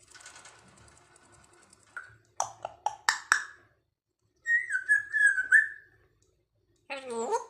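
African grey parrot vocalizing: a faint hiss, then a quick run of sharp clicks and calls, a wavering whistle in the middle, and a short falling call near the end.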